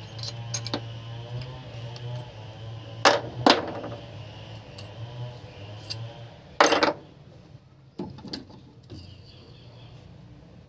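A few sharp metal knocks and clinks from hand tools and engine parts being handled, with a low steady hum underneath for most of the time.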